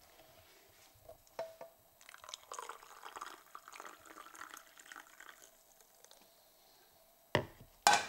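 Hot water poured from a metal saucepan into a plastic tumbler over a tea bag: a splashing trickle lasting about three seconds. Near the end, two sharp knocks on the hard counter.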